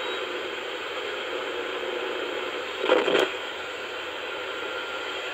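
Static hissing steadily from the speaker of a 1987 Sony Dream Machine clock radio as its tuning dial is turned between stations, with a brief louder burst about three seconds in.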